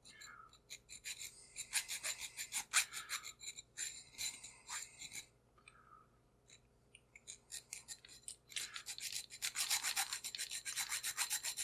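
A metal file rasping across a chrome-plated Top Security padlock in quick back-and-forth strokes. There are two runs of strokes, a few seconds apart, the second denser. The file bites and chews into the metal, the sign that the lock is not hardened.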